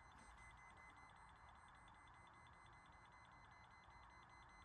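An old smoke alarm, set off by aerosol test smoke, sounding only faintly instead of beeping properly: a thin, high-pitched electronic tone with a rapid pulsing.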